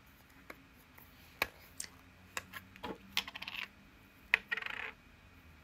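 Several sharp clicks and two short rattling bursts of small hard toys being handled.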